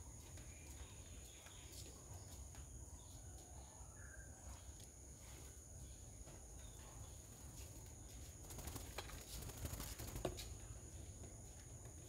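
Faint, irregular taps of a woodpecker pecking at food on a stone slab, with a quicker run of taps a little before the end, over a steady high-pitched insect drone.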